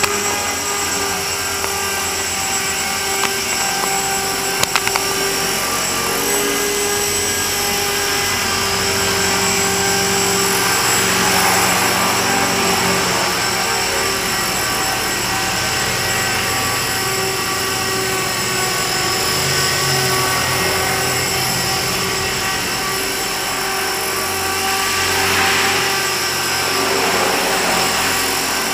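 Small electric RC helicopter, an Esky EXI 250 with a 5000 kV brushless motor on 2S, in flight: a steady high motor and gear whine over the whir of the rotor blades, swelling a little as it manoeuvres.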